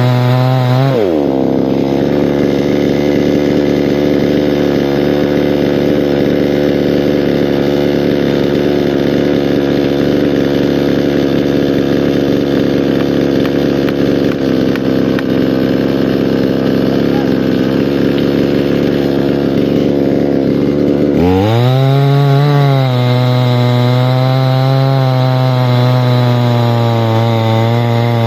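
Chainsaw running at high revs, then dropping sharply in pitch about a second in as it bites into the wood and is held under load through a long, steady cut. Near the end it revs back up as the bar comes free.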